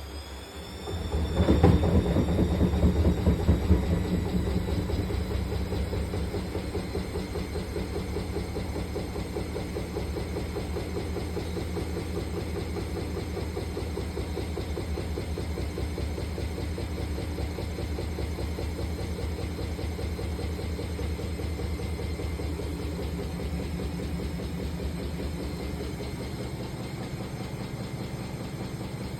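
Bosch WAE28462GB washing machine on its spin: a rising motor whine, then a loud surge about two seconds in, settling into a steady fast rhythmic rumble from the drum. This is the spin fault the video is about.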